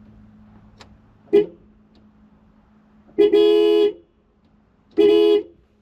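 The 1990 Toyota Space Cruiser van's horn sounds three times: a brief beep, then two longer honks of under a second each. This shows the horn itself works, and the fault lies in a dirty contact track on the steering wheel that needs cleaning.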